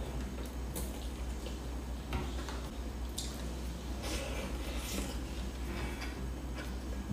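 Close-up eating sounds: soft wet chewing and mouth noises, with a plastic spoon scraping and tapping in a lunchbox of rice now and then. A steady low hum runs underneath.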